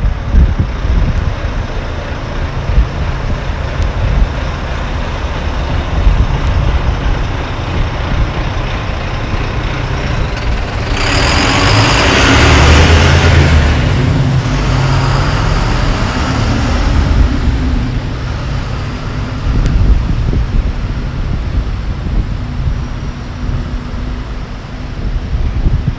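Road traffic passing on a wet street, with a heavy vehicle going by close about eleven seconds in, its engine and tyres on the wet road loudest for a few seconds, then fading. A gusty low rumble of wind on the microphone runs underneath.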